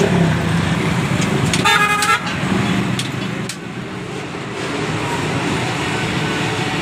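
Street traffic with engines running steadily, and a vehicle horn honking once, briefly, about two seconds in.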